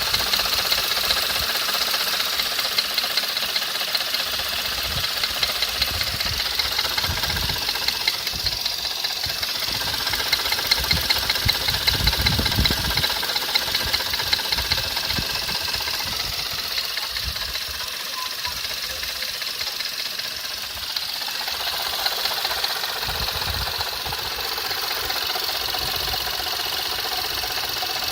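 Skoda Fabia RS engine running with a fast, steady knocking, a knock that the owner cannot yet place between the engine itself and its accessories. A deeper rumble swells for a few seconds around the middle.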